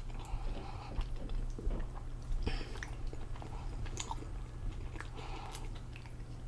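A person chewing a mouthful of soft cod wrap close to the microphone: wet mouth sounds with small clicks and a few crisper bites.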